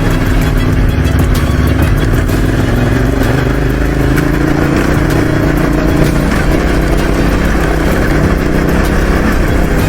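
Motorcycle engine running while riding on the road, a steady note with a slight rise in pitch around the middle.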